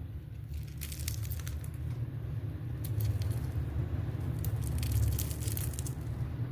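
Crispy fried potato snacks being crunched, in irregular crackles over a steady low rumble.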